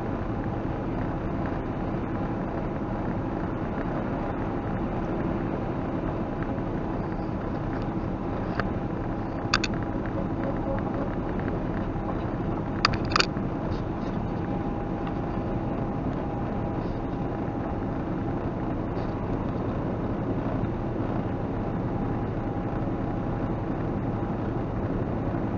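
Semi truck driving at highway speed, heard from inside the cab: steady engine drone and road noise. A sharp click about ten seconds in and a few more about thirteen seconds in.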